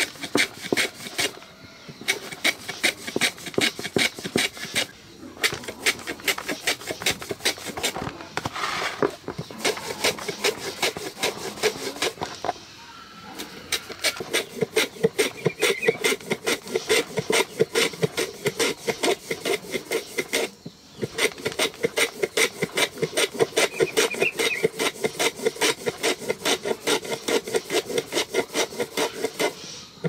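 Fast, even rasping strokes of hand scraping or grating, with a few brief pauses.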